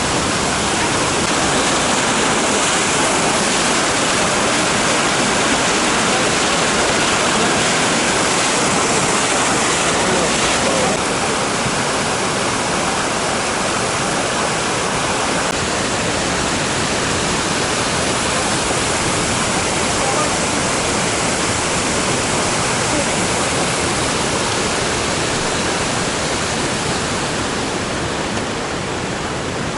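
Floodwater rushing in a torrent: a loud, steady noise of fast-moving water with no breaks.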